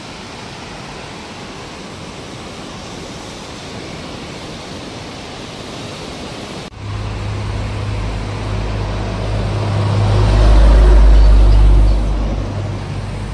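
Swollen, muddy river in flood rushing as a steady roar of water. About two-thirds of the way in the sound cuts to a heavy low rumble from a vehicle passing on the road, which swells, is loudest shortly before the end, and then eases off.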